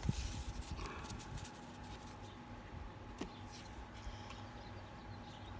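Faint rustling and light clicks of cardboard baseball cards being handled and shuffled, with a short louder rustle at the start, over a steady faint electrical hum.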